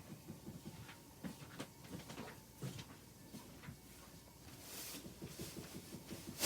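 Light taps and handling clicks scattered throughout, then a single sharp knock at the very end that sounds like someone knocking, made by a cat.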